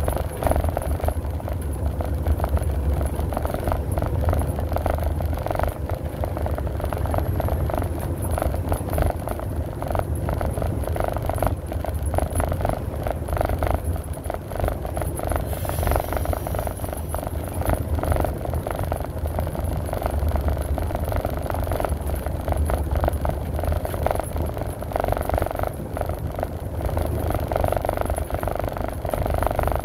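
Engine and road noise heard inside a vehicle's cab while driving at highway speed: a steady low rumble with a constant light rattle.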